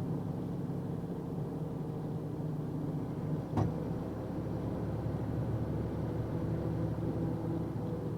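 Box truck's engine and road noise heard inside the cab while driving: a steady low hum, with one short knock about three and a half seconds in.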